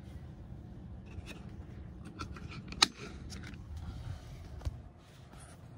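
A phone camera being handled and taken off its mount: a string of clicks and rubbing, with one sharp click a little under three seconds in and another near the end, over a low steady hum.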